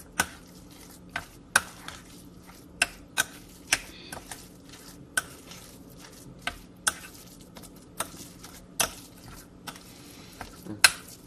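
A metal spoon stirring and scraping a thick date-and-nut haliq mixture in a white ceramic bowl, with sharp, irregular clinks of spoon against bowl about once or twice a second.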